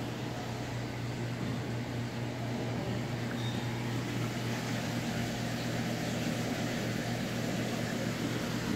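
Aquarium equipment running with a steady low electrical hum over a soft even hiss.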